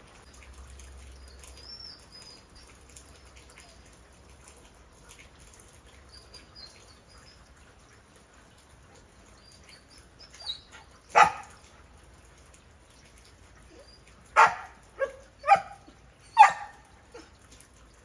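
A dog barking: one bark about eleven seconds in, then four more in quick succession near the end, over a faint patter of rain.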